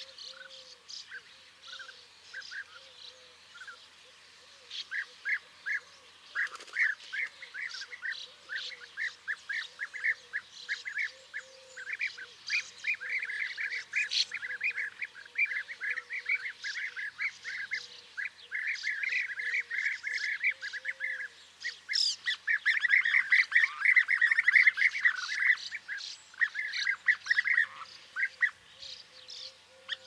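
A group of European bee-eaters calling: many short, repeated notes overlapping one another. The notes are sparse at first, come thickly from about five seconds in, and are densest and loudest a little past the twenty-second mark.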